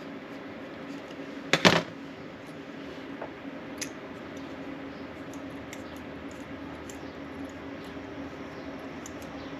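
Objects being handled on a workbench: a sharp double knock about one and a half seconds in, then faint scattered clicks, over a steady low hum.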